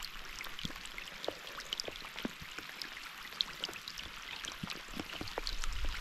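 Heavy rain falling on the surface of a mountain tarn: a dense hiss of countless small drop splashes on the water, with a low rumble building near the end.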